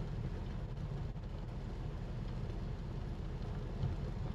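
Steady low rumble of water heating toward the boil in a lidded stainless steel pot on a glass-top cooktop, with one soft bump near the end.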